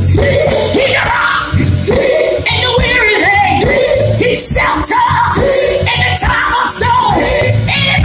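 Gospel music in a church: voices singing over a band with a steady low bass and regular drum hits.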